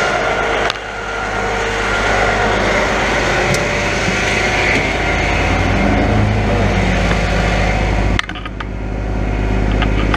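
Grapple truck's engine running steadily, a constant low hum, with the sound dropping abruptly about eight seconds in.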